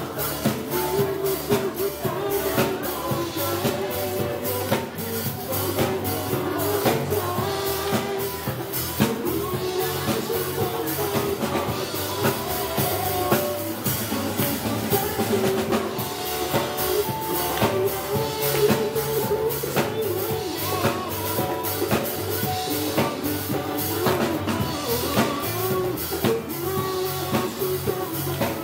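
Live band playing a pop-rock song with a steady drum-kit beat, guitar and keyboard, while several singers sing into microphones through the PA.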